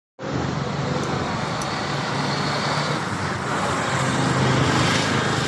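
Road traffic: a steady wash of passing vehicles with a low engine hum, swelling slightly about four seconds in.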